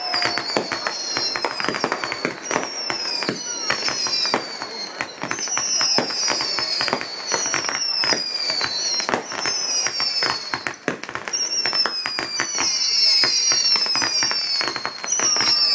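Fireworks going off in quick succession: bangs and crackling from aerial bursts, with repeated high falling whistles throughout.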